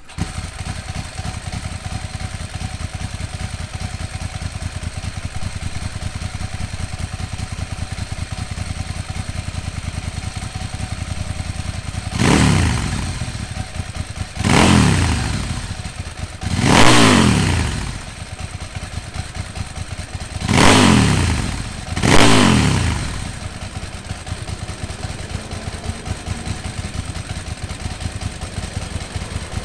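Ducati Sport 1000's air-cooled 90-degree V-twin running through an AELLA titanium full exhaust system: a lumpy, pulsing idle, blipped five times with the throttle from about twelve seconds in, each rev rising and falling quickly before it drops back to idle.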